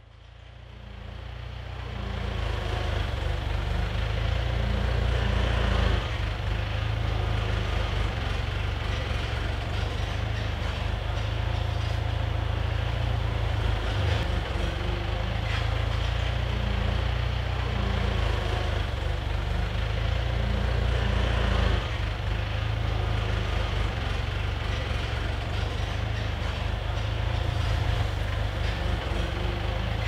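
Heavy machinery engines running, a steady deep rumble that fades in over the first two seconds.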